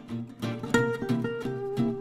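Background music: acoustic guitar picked and strummed in quick notes.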